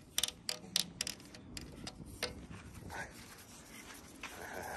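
Light clicks and taps, several in quick succession at first and then a few scattered ones, as a dog leash and its clip are handled at the metal handle of a playground spring rider.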